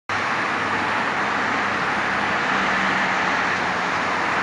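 Steady highway traffic noise, the even rush of cars and trucks passing on a multi-lane highway, starting abruptly and holding constant.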